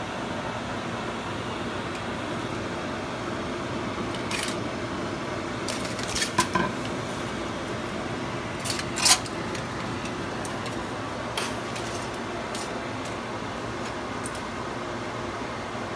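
Aluminium foil crinkling and crackling in a few short bursts as hands work over it, the loudest a sharp crackle about nine seconds in, over a steady background hiss.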